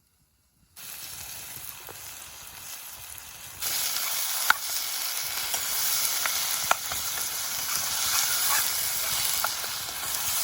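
Food frying in hot oil in a pan over a campfire, a steady sizzle that starts about a second in and grows much louder about 3.5 s in, with a few sharp pops and spits.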